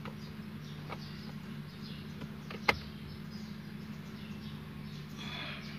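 Steady low hum inside a car cabin, with a single sharp click about two and a half seconds in and faint high chirps near the end.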